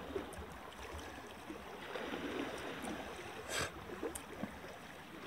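Steady wash of gentle water lapping against a rocky shore, with a few small clicks and a brief rustle about three and a half seconds in.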